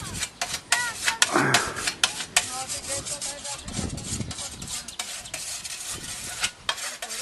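A hand scythe's blade swishing and slicing through dry meadow grass in repeated mowing strokes, with many short sharp rasps.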